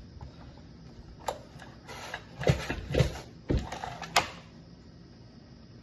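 A handful of short knocks and clunks, about five over three seconds, from hard objects being handled and set down.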